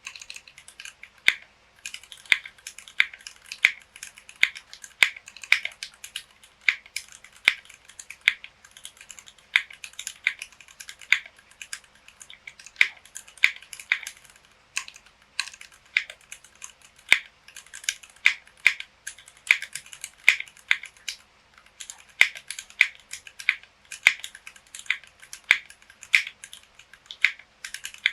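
Typing on a mechanical keyboard with stock Gateron Milky Yellow linear switches, PBT keycaps and a Tofu 60 acrylic case: a steady run of crisp keystroke clacks, several a second, with short pauses between bursts.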